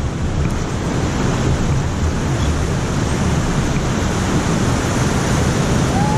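Steady rushing roar of whitewater from Lava Falls Rapid on the Colorado River, heard from a raft closing on it, with a deep low rumble under the hiss.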